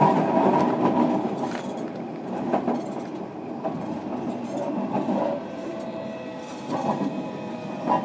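Running noise inside a JR Kyushu 305 series electric train's motor car, which has Toshiba permanent-magnet-motor VVVF drive, while the train is under way. A steady rumble of wheels on rail with a few sharp clicks, easing in loudness over the first few seconds.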